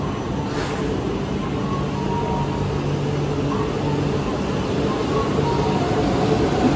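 E4 series Max Shinkansen pulling out of the platform, its running gear humming in several steady tones that grow louder as the train gathers speed. A brief hiss comes about half a second in.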